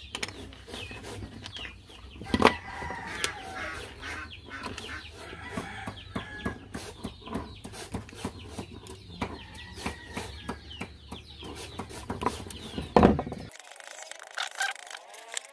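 Chickens clucking in the background, over clicks and knocks from a screwdriver and wires being worked into a small plastic temperature controller. There is a sharp knock about two seconds in and another near the end, and a low background hum cuts off abruptly near the end.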